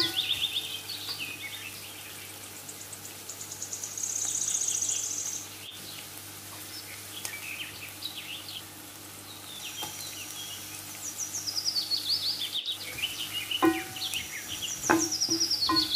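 A songbird singing repeated high chirping phrases that step downward in pitch, with a long rapid trill about four seconds in, over the faint sizzle of chopped onions frying in oil.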